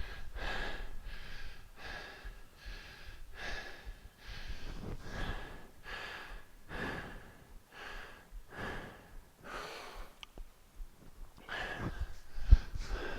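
A man breathing hard and fast through an exercise interval, with heavy rhythmic breaths about three every two seconds and a short pause near the end. A single low thump comes shortly before the end.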